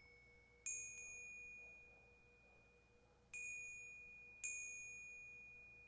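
A high-pitched chime struck three times: about a second in, and again at about three and a half and four and a half seconds. Each note rings on and slowly fades, over a faint steady lower tone.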